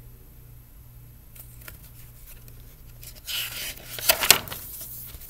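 A paper page of a picture book being turned: a soft rustle about three seconds in, then a louder swish of the page a second later.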